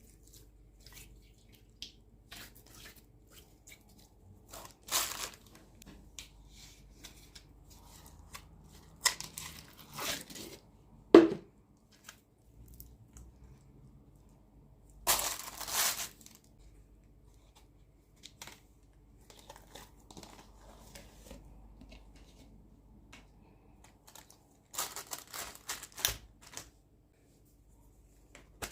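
Slime being stretched, folded and pressed by hand: sticky crackling and small pops, with several louder crackly tearing bursts as it is pulled apart, and one short low squelch near the middle.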